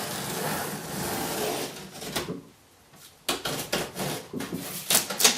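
Cardboard packaging of a 3D printer being opened and handled: a sliding, scraping rub for about two seconds, a short pause, then a quick run of rustles, clicks and knocks, the loudest near the end.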